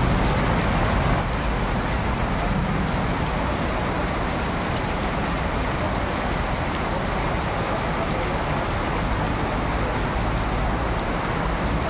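Heavy rain pouring steadily onto a wet street and pavement, with traffic moving on the flooded road.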